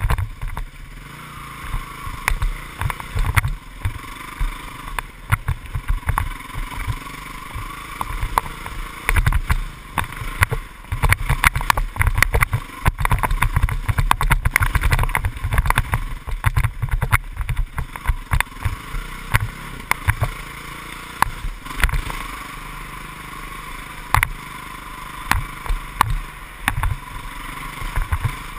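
Dirt bike engine running as it is ridden over a bumpy dirt trail, the engine note rising and falling, with frequent thumps and knocks from the rough ground throughout.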